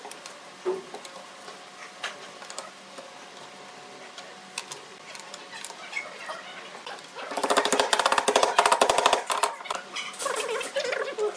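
Small wooden blocks being set into the gaps between the slats of a round slatted wooden tabletop: scattered light wooden knocks and clicks. About seven seconds in comes a loud, fast clatter lasting about two seconds.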